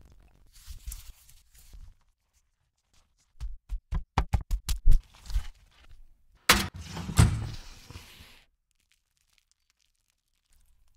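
Food-prep sounds on a sheet tray: a brief hiss, then a quick run of about eight soft thuds, then a sharp knock followed by a rustling hiss.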